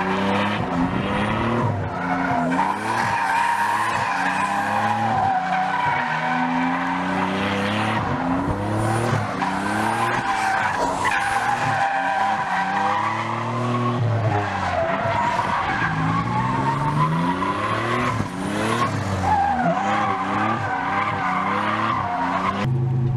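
A Nissan 300ZX (Z31) drifting in circles: the tyres squeal continuously while the engine revs rise and fall every couple of seconds as the throttle is worked to keep the rear wheels spinning.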